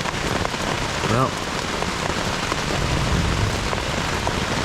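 Heavy rain drumming on a tent's fly, a dense steady patter of drops heard from inside the tent.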